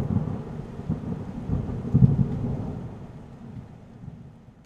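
Low rumbling, crackling noise, most likely the end card's sound effect. It swells once about two seconds in, then fades out near the end.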